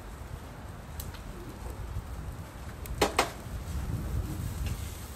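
Two sharp clacks a fraction of a second apart about three seconds in, over a steady low rumble.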